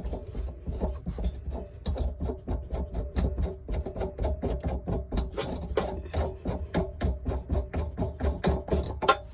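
Background music: a fast, steady percussive beat over a low droning tone.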